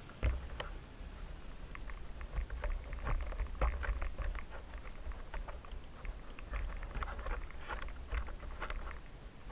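Scattered small pops and crackles of fireworks going off, irregular and several a second, over a steady low rumble.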